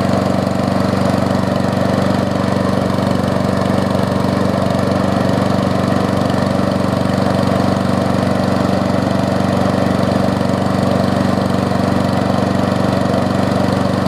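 Briggs & Stratton Quantum single-cylinder four-stroke push-mower engine running steadily at a fixed throttle setting, with an even, unchanging note; it is running well after being brought back from sitting.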